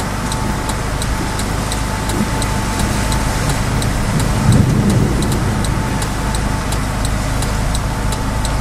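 Steady low rumble of wind gusting around a stopped car in a thunderstorm, heard from inside the cabin over the car's running engine, with a low swell about halfway through.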